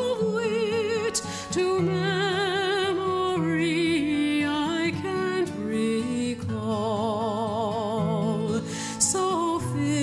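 Background music: a slow, wavering melody over sustained low held notes.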